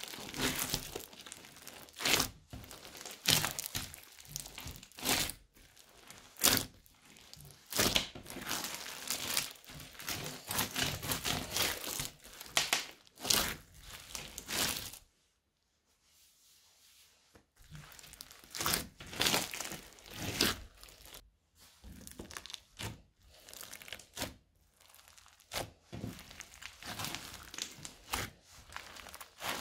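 Crunchy slime full of small polystyrene foam beads being squeezed, folded and stretched by hand, giving quick irregular crackles and sticky pops. The handling stops for about two seconds near the middle, then starts again.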